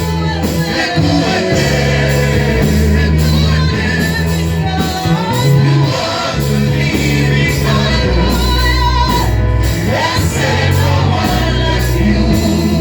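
Gospel worship music: a band with steady bass plays under loud singing, typical of live church praise.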